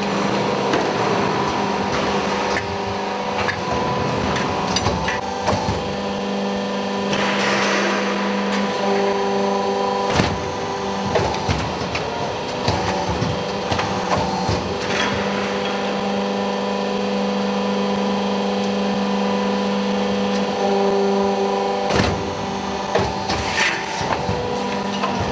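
Shelving-panel roll forming line running: a steady machine hum with scattered metallic clicks and knocks as the panels are formed and handled, and a short burst of hiss about seven seconds in.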